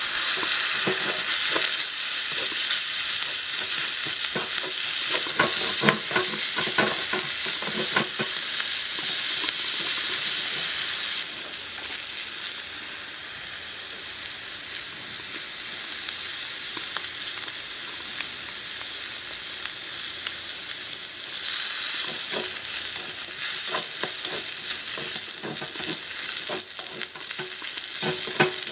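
Food sizzling in a miniature metal wok as a small wooden spatula stirs it, with light scraping and tapping of the spatula against the pan. The sizzle turns quieter about halfway through and rises again near the end.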